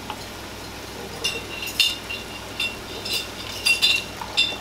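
A spoon scraping and clinking against a glass measuring cup as a thick vinegar and sugar mix is poured out into a pot of onions. It is a run of short, ringing clinks, starting about a second in.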